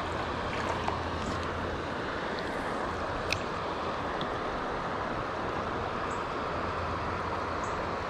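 Steady rush of flowing creek water, with a short click a little over three seconds in.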